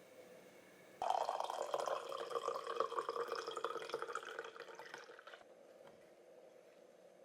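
Water running and splashing, starting suddenly about a second in and stopping about four seconds later.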